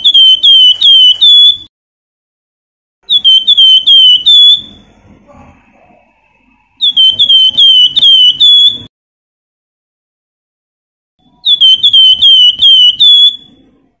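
Caged Javan fulvetta (wergan jawa, known to bird keepers as flamboyan) singing loud: four short bursts a few seconds apart, each a rapid run of about five or six high, hooked whistled notes.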